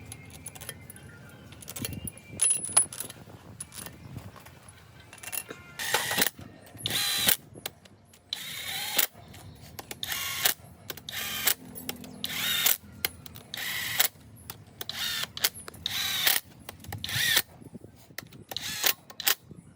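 Hand ratchet wrench being worked in short strokes, a harsh ratcheting burst roughly once a second, as bolts are turned on the engine.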